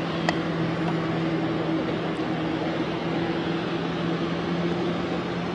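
Boat motor running steadily, a low hum with an even hiss over it, a small click about a quarter second in.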